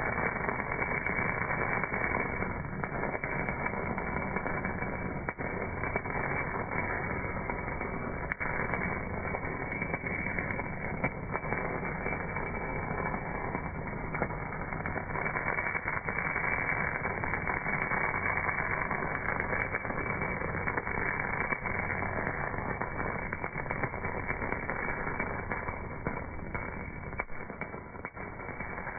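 MAG (gas metal arc) welding arc burning on a cast part: a dense, steady crackling hiss with scattered sharper ticks, dull-sounding with no high treble.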